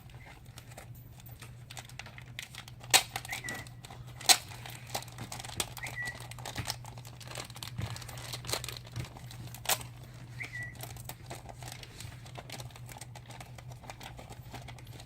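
Plastic film crinkling and crackling in irregular bursts as a pre-cut adhesive sheet and its backing are handled, with a few sharp clicks over a steady low hum.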